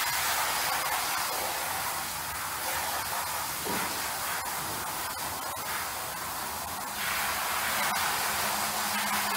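Water jetting from a hose spray nozzle onto a soaked rug, a steady spray rinsing the shampoo out of the pile. It grows louder about seven seconds in.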